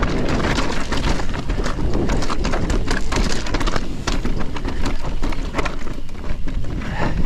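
Electric mountain bike descending a loose, rocky trail: tyres crunching over stones, with many sharp clacks of stones kicked up against the frame and bottom bracket, over a steady wind rumble on the microphone.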